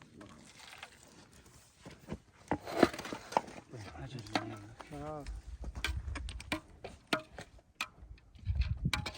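Men's voices, indistinct, with scattered sharp clicks and knocks. Low rumbles come in about halfway through and again near the end.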